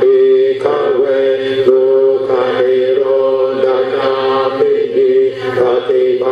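Buddhist chanting in Pali, a monotone recitation held on a near-steady pitch with short breaks between phrases.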